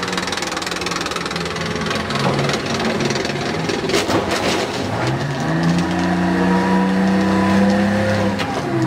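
Tracked armoured vehicle's engine running with its tracks clattering as it drives onto a car. About four seconds in there is a burst of crunching and cracking as the tracks bear down on the car. The engine then revs up under load as the vehicle climbs onto the car, its pitch rising and holding, then dropping off near the end.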